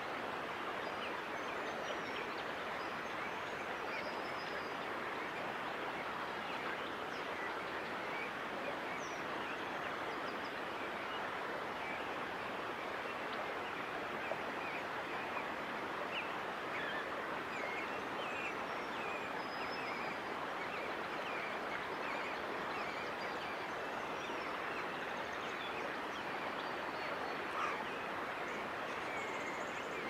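Outdoor ambience: a steady, even hiss with faint, short bird chirps scattered throughout.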